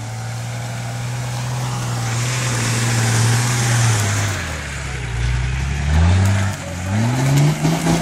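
Nissan Patrol 4x4 engine pulling through deep mud, its tyres churning and throwing mud as it passes close by. The engine note holds steady, drops about halfway through, then revs up twice in quick rises near the end.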